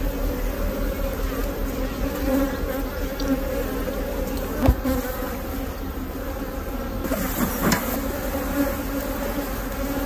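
Steady buzzing of a mass of honeybees swarming over an opened hive frame; the colony is queenless. A single sharp knock about halfway through.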